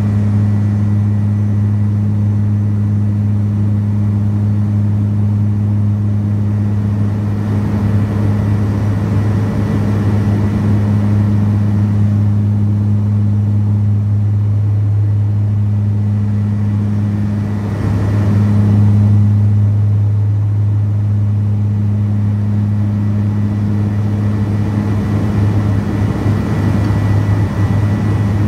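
Cabin drone of a BAe Jetstream 32's Garrett TPE331 turboprops in flight: a steady low propeller hum with a second tone an octave above, over a rush of air noise, swelling slightly about two-thirds of the way through.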